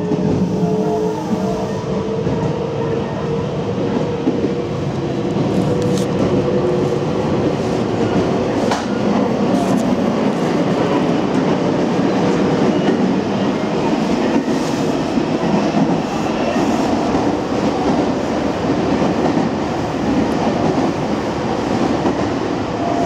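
Nagoya Municipal Subway 7000 series train running, heard inside the passenger car. Its traction motors give a whine in the first few seconds, a running sound the same as the Meitetsu 300 series. That whine then gives way to a steady rumble of wheels on rail with a few sharp rail-joint clicks.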